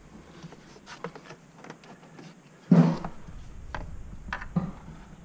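Faint handling noise: scattered light clicks and rubs of hands feeling over the plastic air box and its hoses for the spring-loaded clips, one a little louder about three seconds in.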